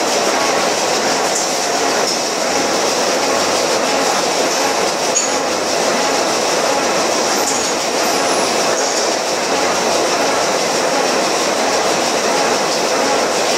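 Paper hardboard laminating line running: a loud, steady mechanical noise from its rollers, conveyor and stacker, with a few brief high squeaks.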